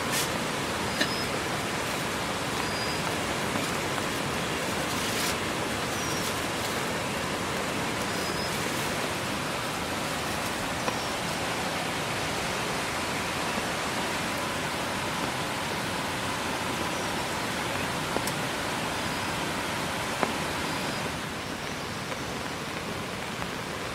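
Heavy rain falling steadily, a constant hiss with a few sharper drop strikes now and then. Faint, short, high chirps come through every few seconds, and the rain eases slightly near the end.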